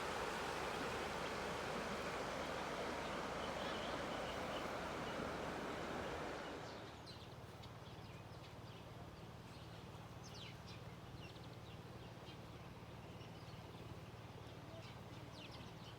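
Steady rush of river water for about six seconds, then it falls away and small birds chirp again and again in short high notes over a quieter background with a faint low hum.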